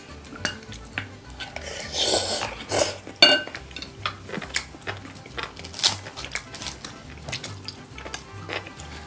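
Wooden spoons and chopsticks clinking and scraping against glass rice bowls and stone pots during a meal, with a louder ringing clink about three seconds in. Faint background music plays underneath.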